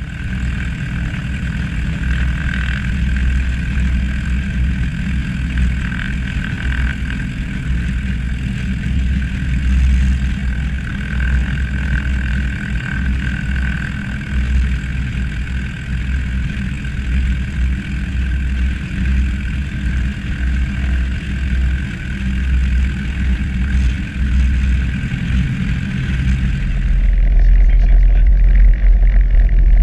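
Piper Warrior's four-cylinder piston engine and propeller running at take-off power during the roll along a grass runway: a loud, steady drone. Near the end the sound turns deeper and duller, as heard from inside the cabin.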